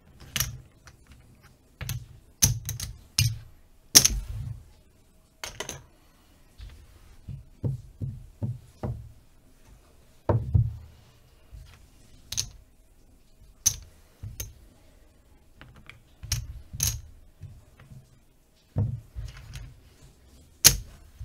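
Casino chips clicking and clacking as they are handled, stacked and set down on a craps table layout: irregular sharp clicks, some in quick clusters of two or three, with short pauses between.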